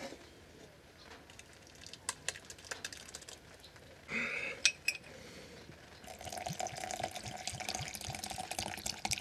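Thick blended tomato purée pouring from a plastic blender cup into a pot, with a few light clinks, then, from about six seconds in, vinegar pouring steadily into the blender cup.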